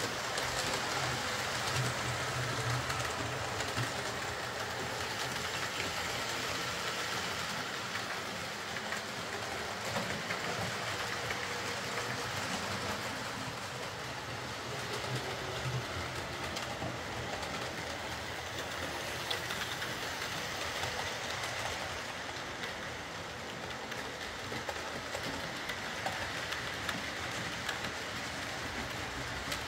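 OO gauge model trains running on layout track: a steady rolling clatter of wheels on the rails with a faint wavering motor whine.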